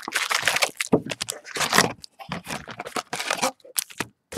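Trading-card packaging being handled and torn open: crinkling wrapper and scraping cardboard in short, irregular bursts with brief pauses.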